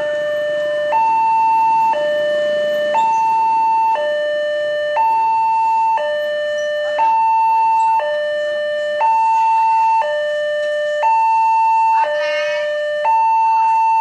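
Railway level-crossing siren sounding a two-tone alarm, switching between a higher and a lower tone about once a second, warning of an approaching train while the barriers close.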